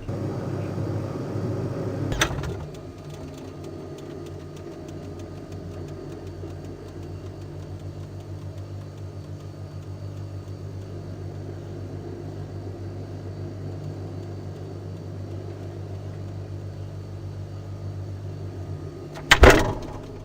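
Microwave oven running with a steady low hum, switched on with a click about two seconds in. A sharp knock comes near the end.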